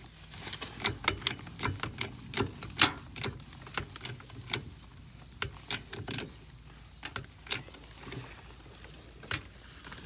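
Sharp, irregular clicks and knocks as a mobile home pier is jacked up, coming thick and fast in the first few seconds and then thinning out, with the loudest a little under three seconds in.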